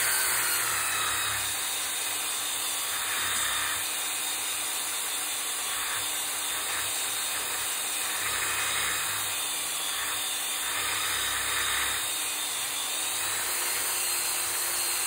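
A power tool spinning an abrasive sanding drum against cast-iron vise casting, cleaning off flashing and grind marks. The motor whines steadily while the scuffing of the sanding comes and goes in passes about every two seconds.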